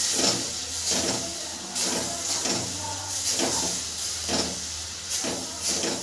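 Jaggery syrup hissing as it cooks in a metal kadhai, with a spatula scraping around the pan in short strokes about once a second.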